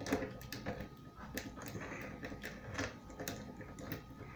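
A jiggler key being worked back and forth in a wafer lock: light, irregular clicks and rattles of the key against the wafers, with a few sharper clicks among them.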